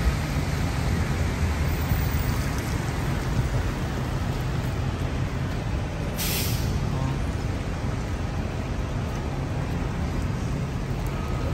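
Steady rumble of city street traffic, with one short, sharp hiss about six seconds in from a heavy vehicle's air brakes.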